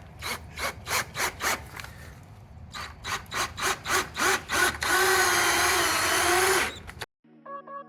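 Power drill pulsed on the trigger in short strokes, about three a second, in two groups, then held for a steady run of about two seconds before cutting off suddenly. Soft synthesizer music comes in just before the end.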